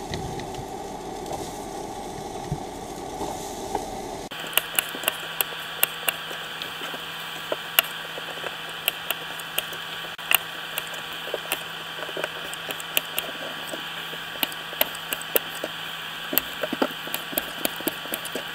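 Kitchen knife cutting new potatoes and tapping against a cutting board: many sharp, irregular clicks, over a steady hum that changes abruptly about four seconds in.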